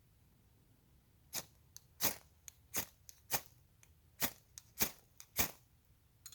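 Ferro rod struck repeatedly to throw sparks onto birch bark: about seven sharp scrapes, roughly one every 0.6 seconds, starting just over a second in, while lighting a campfire.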